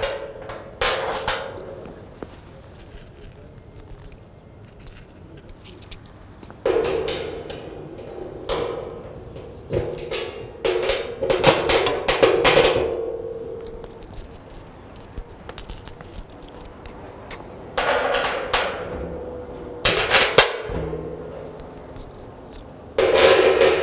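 Bolts being fitted through a satellite dish reflector: bursts of clicks and knocks against the dish, each with a low ringing tone under it, in several separate spells with quieter gaps between.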